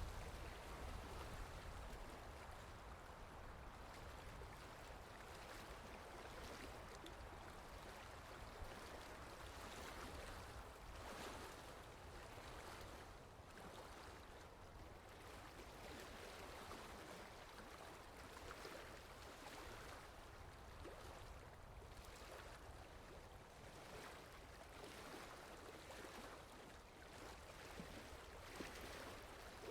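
Faint, steady lapping of lake water, with a low rumble underneath.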